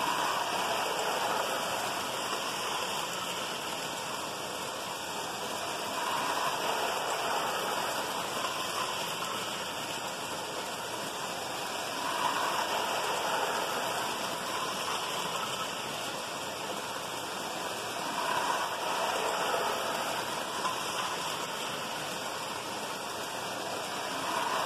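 Lionel toy freight trains running on three-rail tubular track: a steady rolling rumble of wheels and motors that swells every few seconds as a train passes close.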